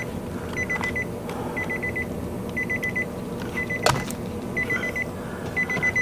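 Nissan Rogue's key-in-ignition warning chime beeping in quick bursts of short high beeps, about one burst a second: the warning that the key is left in the car with the driver's door open. A steady low hum runs underneath, and there is one sharp click about four seconds in.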